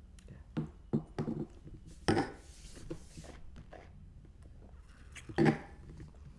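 Light clinks and knocks of small glass bottles and tasting glasses being handled and set down on a wooden table, a handful in all, with louder ones about two seconds in and near the end.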